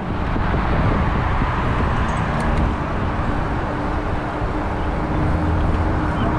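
Steady rush of wind and road noise on the microphone of a camera riding on a moving bicycle, with a faint steady hum. It starts abruptly.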